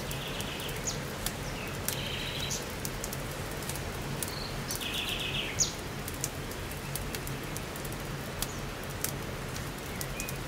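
Wood campfire crackling, with sharp irregular snaps and one louder pop a little past halfway. Birds chirp in short calls and brief rising whistles over it.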